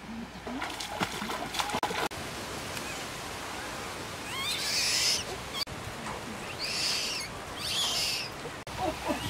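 Baby monkey's high squealing calls: three in all. The first rises in pitch, about halfway through. The other two are shorter and come about a second apart near the end.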